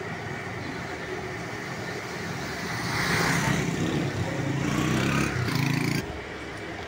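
Motorcycle engine passing close by. It grows louder from about three seconds in and drops off suddenly near the end, over a steady hum of street noise.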